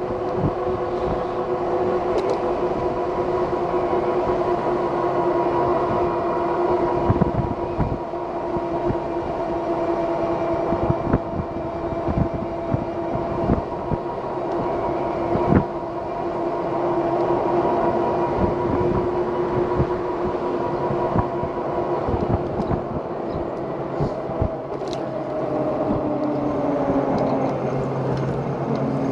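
Electric bike hub motor whining at a steady speed, a stack of even tones over road and wind rumble with scattered small knocks. Its pitch drops near the end.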